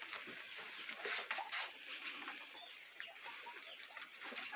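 Soft clucking and chirping animal calls over a busy scatter of small rustles and clicks, as from animals moving through hay and grass.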